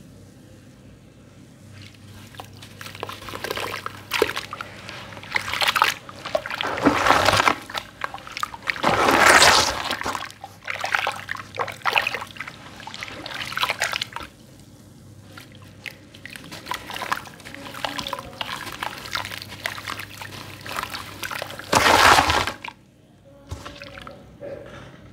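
Hands stirring and swishing through water clouded with sand cement in a metal tub, in irregular sloshing, splashing bursts. The loudest splashes come about 9 seconds in and again near the end.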